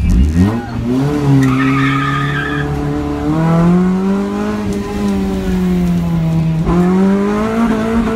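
Honda Civic EF's D15B four-cylinder engine revving hard on a launch from the start line, its pitch climbing steeply in the first second, then rising and falling with the throttle. Tyres squeal briefly about one and a half seconds in. Heard from inside the cabin.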